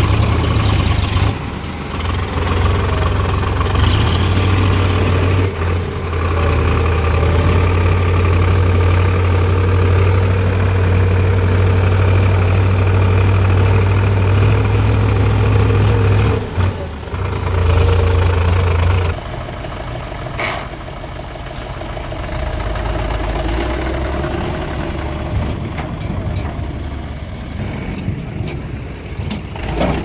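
Diesel engines of a backhoe loader and farm tractors running close by. A loud, steady low drone continues until about two-thirds of the way through, then drops to a quieter engine note.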